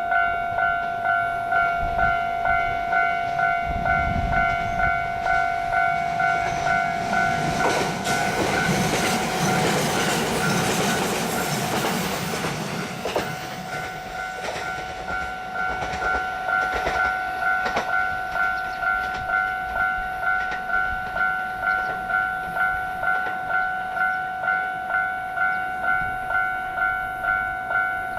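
Japanese level-crossing warning bell ringing at a steady rhythm of about one ring a second. An electric train passes through the middle, its wheel and running noise swelling and then fading while the bell keeps ringing.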